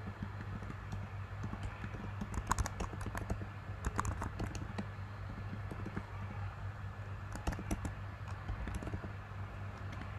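Computer keyboard being typed on in short bursts of key clicks, over a steady low hum.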